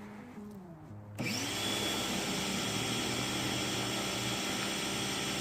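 Electric pressure washer kicking on about a second in and running steadily, with a high whine over the hiss of water spraying through a rotating surface cleaner.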